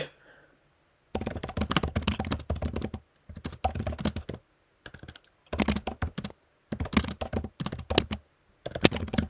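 Typing on a computer keyboard: rapid key clicks in bursts of about one to two seconds with short pauses between them, starting about a second in.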